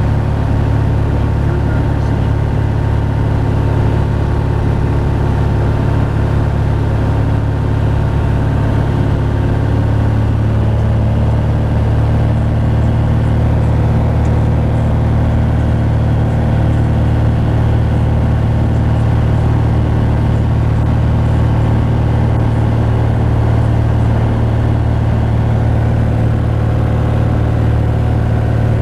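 A single-engine light airplane's piston engine and propeller drone steadily in flight, heard from inside the cabin. The tone shifts slightly about ten seconds in.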